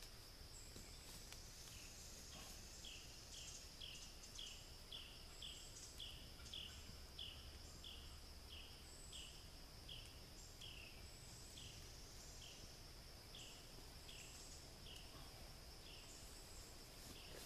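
Faint woodland background: a steady, high-pitched insect drone, with a short falling call repeated about twice a second throughout, likely from a bird.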